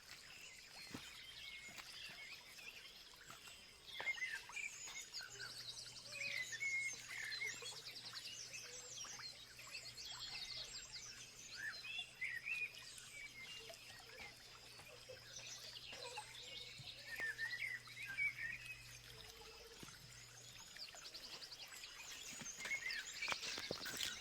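Outdoor ambience with several birds chirping and calling in short, varied phrases throughout, over a steady high whine and light background noise.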